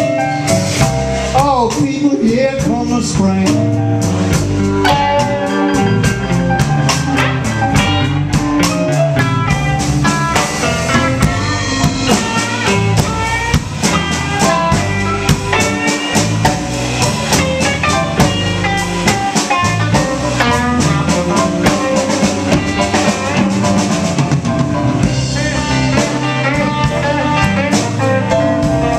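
Live blues band playing an instrumental passage without vocals: guitars, bass and drum kit, with piano in the band.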